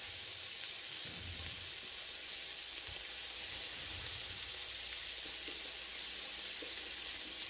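Marinated chicken wings sizzling steadily on the hot plate of an electric non-stick smokeless indoor grill.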